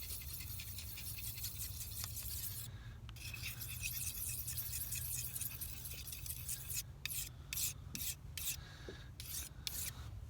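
Fillet knife blade rubbing across a small whetstone in semicircular sharpening strokes: a steady scraping hiss that breaks into separate strokes, about two a second, in the second half.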